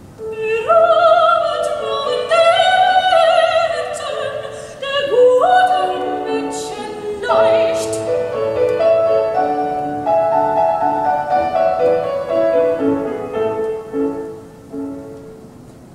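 A recording of an operatic voice with piano accompaniment, played over a tube-amplified hi-fi system through Rogers loudspeakers. A sung phrase with vibrato fills the first few seconds, then a run of held notes follows and fades out near the end.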